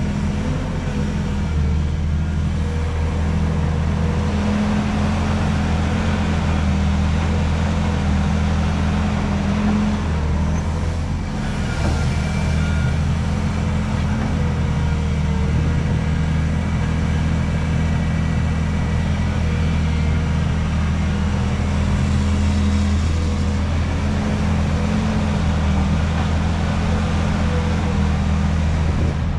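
Hydraulic excavator's diesel engine running steadily, with a faint wavering whine above the engine note.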